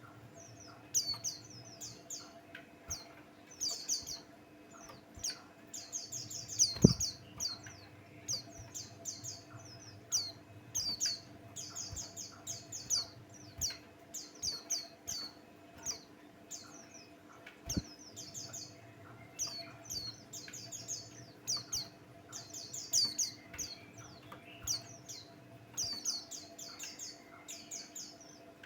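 White-eye (pleci Buxtoni) singing: a continuous, rapid, high twittering of quick chirps. Two dull thumps come about 7 and 18 seconds in, the first the loudest sound; a faint steady hum lies underneath.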